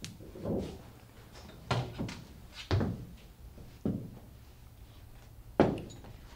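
A string of about six dull knocks and thuds, each with a short ringing tail, from glassware being handled and set down on a bar counter; the sharpest knock comes near the end.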